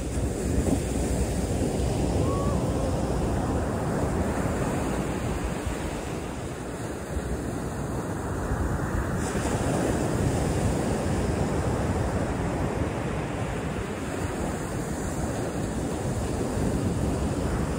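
Ocean surf breaking and washing up the beach, with wind rumbling on the microphone.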